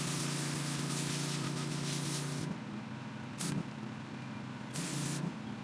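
Pressure washer wand blasting water onto a concrete walkway: one long spray with a steady low drone from the machine under load, cut off about two and a half seconds in, then two short bursts of spray.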